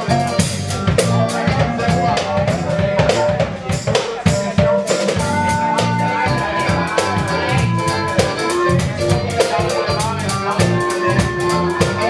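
Live funk band playing: busy drum kit with snare and cymbal hits over an electric bass line and guitar. From about halfway through, a wind instrument holds long notes above the groove.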